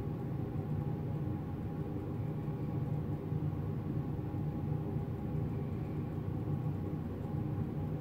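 Steady low mechanical hum made of several held tones, strongest at the low end, with no change in level.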